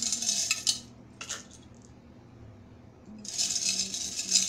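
A box of small charms rattling as it is shaken, in two bursts. The first stops under a second in and is followed by a single click. The second starts about three seconds in.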